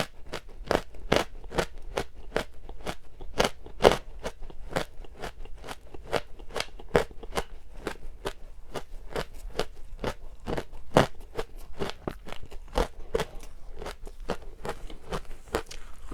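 A mouth chewing ice dusted with matcha powder: a steady run of crisp crunches, about three a second.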